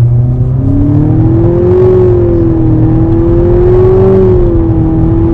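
Nissan Altima's 248-hp engine under full throttle, pulling through its CVT in a standing-start 0–100 km/h run. The engine note climbs for about a second and a half, then holds nearly steady as the CVT keeps the revs up while the car gathers speed.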